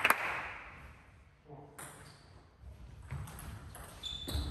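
A table tennis ball clicks once at the start while the hall's background noise fades away. Then the hall is quiet apart from a few faint knocks and a brief distant voice.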